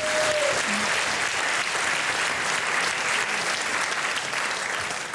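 Studio audience applauding, a steady clatter of many hands that eases slightly near the end.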